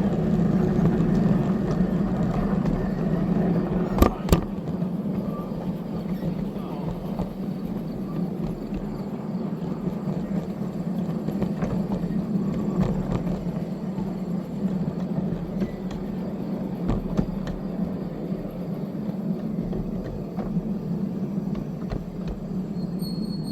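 Small railroad locomotive engine running steadily, with two sharp knocks about four seconds in.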